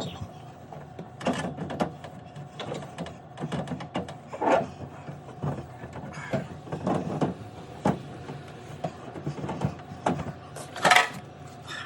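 Irregular rubbing and scraping as a rag scrubs sticky residue inside a refrigerator, with handling knocks; the loudest comes about eleven seconds in. A faint steady hum lies underneath.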